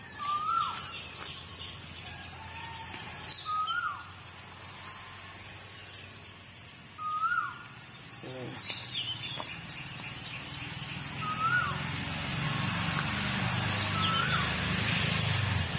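Forest ambience: a bird repeats a short whistled note that rises then drops, about every two to three seconds, with a few higher falling chirps, over a steady high drone of insects. In the last few seconds, low rustling and scraping of hands working in the leaf litter and soil.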